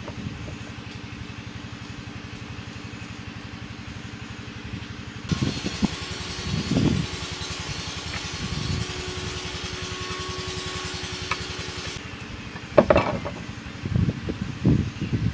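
An engine runs steadily with a low hum throughout. Over it come several knocks and thumps of canes and tools handled and cut on a wooden board, the loudest about thirteen seconds in.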